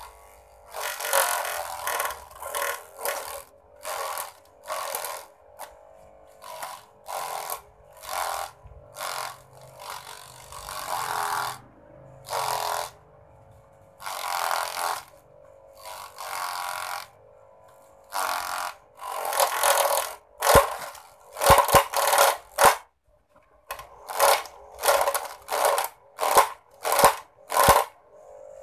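Homemade mini grass chopper driven by a reused toy-car electric motor, running with a steady hum and chopping grass leaves as they are fed in: about two dozen bursts of cutting noise, each up to a second long. In the last third the bursts come about once a second, with sharp knocks.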